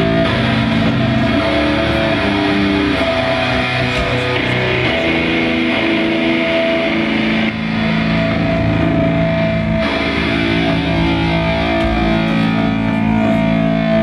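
Live rock band playing loud and steady, led by distorted electric guitar with sustained chords.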